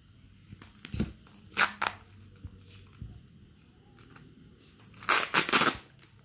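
Packing tape and bubble-wrap packaging being cut and torn open: short bursts of tearing and crinkling about a second in, then a louder cluster near the end.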